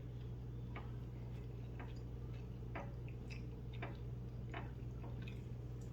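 Faint, irregular mouth clicks and smacks of someone chewing food close to the microphone, over a steady low hum.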